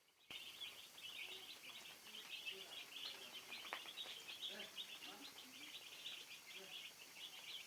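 A flock of broiler chickens peeping continuously, many short high chirps overlapping.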